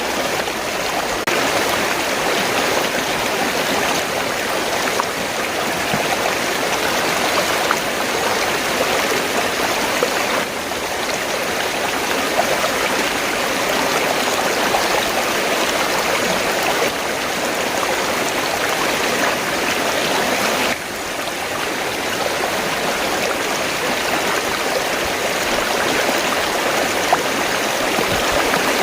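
River water flowing in a steady rushing babble, with two small sudden shifts in level, about a third and two-thirds of the way through.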